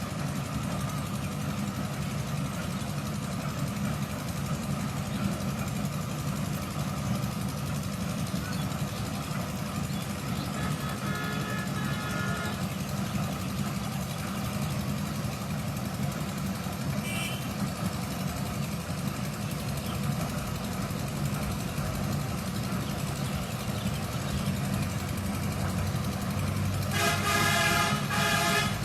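An engine running steadily, with a horn sounding briefly about eleven seconds in and again, louder, near the end.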